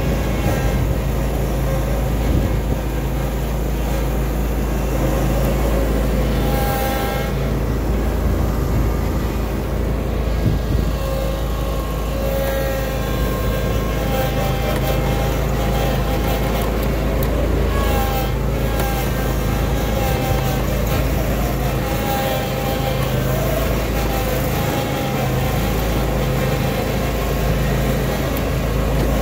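Walker riding mower's engine running steadily at a constant speed: a continuous deep hum with a few higher tones that drift slightly in pitch.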